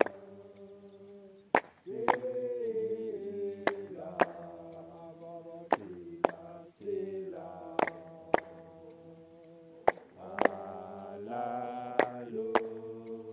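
Bobo Shanti Rastafari congregation chanting a slow hymn unaccompanied, voices holding long notes together. Sharp knocks come in pairs about every two seconds throughout.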